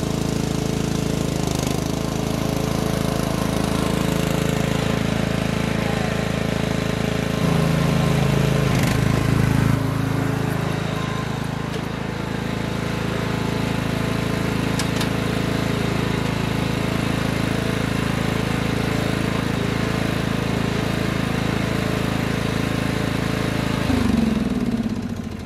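Craftsman 917 lawn tractor engine running steadily as the tractor is driven, louder for a couple of seconds about eight seconds in. Near the end the engine is shut off and winds down, falling in pitch.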